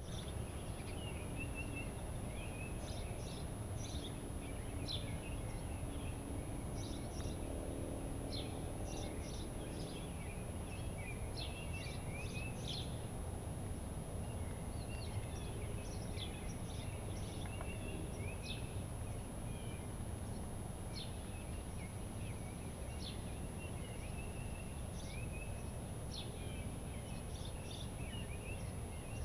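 Birds chirping and trilling repeatedly over a low, steady background rumble.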